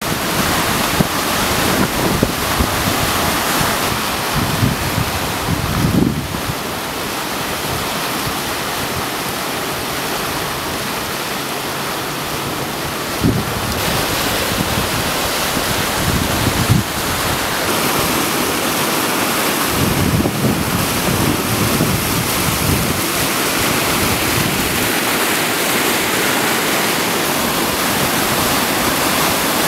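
Muddy floodwater from a flash-flooded creek rushing and churning through trees and past a highway culvert, a loud steady rush. Gusts of wind buffet the microphone several times.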